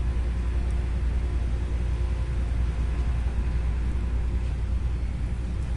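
Steady low rumble with a fainter hiss over it: constant room background noise.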